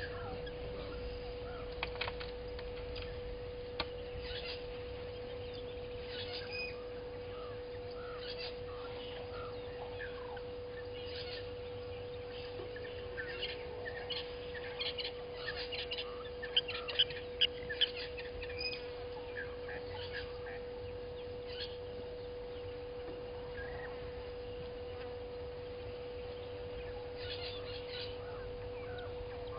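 Wild birds calling in the bush with scattered short chirps, and a quick run of louder sharp calls about halfway through. A steady hum runs underneath, and a couple of faint clicks come in the first few seconds.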